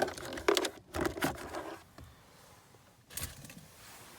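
Things being taken out of a car's glove box: a few short knocks, rustles and scrapes of handled objects over the first two seconds, then quieter, with one more knock about three seconds in.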